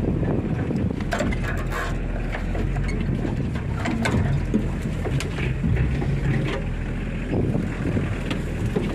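Nissan Patrol 4x4 engine running steadily, heard from inside the cab, with repeated knocks and rattles from the body and interior as it crosses rough, bumpy ground.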